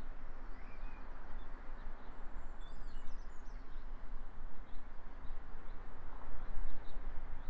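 Wind buffeting the microphone with a steady low rumble, while small birds chirp faintly a few times.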